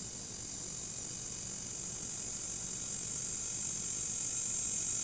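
Switch-mode power supply of a 2006 Polaroid 37-inch LCD TV screeching: a steady high-pitched whine that grows steadily louder while the set is on and under load. The noise is the classic sign of a failing power supply, most likely failed capacitors on the board.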